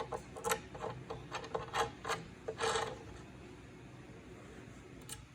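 Small metal tube fittings being handled and fitted together by hand: a quick run of clicks and scrapes over the first three seconds, one more near the end.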